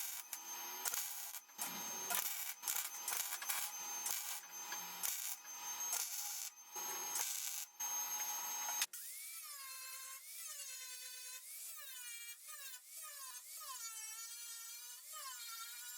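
Welding the mirror holes in a steel truck door shut: a series of short, separate bursts of welding crackle. About nine seconds in the sound cuts abruptly to a small high-speed grinding tool whining on the metal, its pitch dipping and rising about once a second as it bears down.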